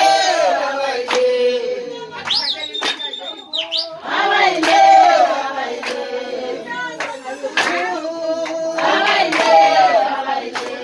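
Voices singing a song in phrases, with sharp hand claps scattered through it. Between the first and second phrases a brief high tone rises and falls.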